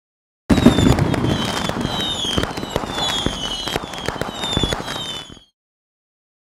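Fireworks sound effect: a run of short whistles falling in pitch, mixed with sharp bangs and crackling. It starts abruptly about half a second in and cuts off suddenly near the end.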